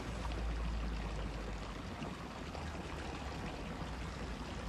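Steady rushing splash of water falling from a fountain.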